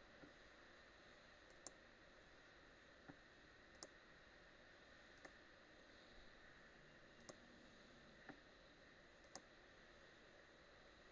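Faint computer mouse button clicks: single clicks about a second apart, nine or so in all, over a low steady hiss.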